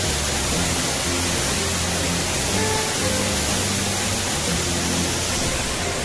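Background music with slow, held low notes, over the steady rushing noise of a large waterfall pouring into a pool.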